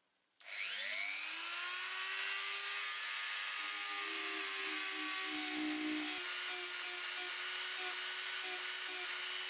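Rotary tool spinning up about half a second in to a steady high whine, its sanding drum grinding the corroded metal end cap on a wooden drawknife handle, the pitch wavering and stuttering as the drum bites the metal.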